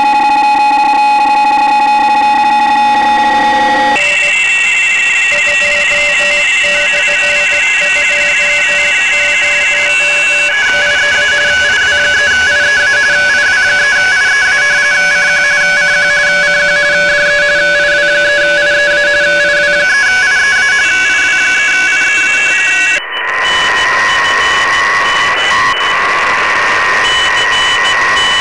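Shortwave receiver audio on the 30-metre amateur band: several digital-mode signals, RTTY and PSK31, heard as steady and rapidly keyed tones over band hiss. The mix of tones changes abruptly several times as the receiver is retuned.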